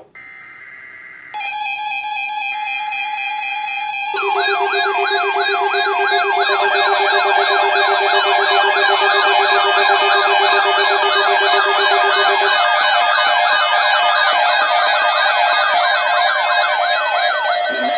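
Emergency alert tones: short buzzy data bursts, then a steady alert tone, joined about four seconds in by several layered sirens wailing rapidly up and down over steady tones. The lowest steady tone drops out about two-thirds of the way through.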